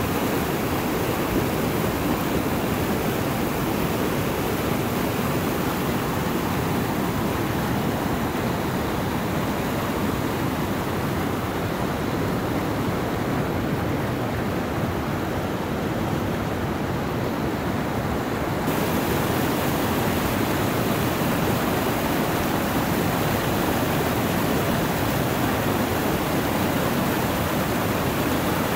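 River rapids rushing over rocks: a steady, loud hiss of fast water that steps up slightly about two-thirds of the way in.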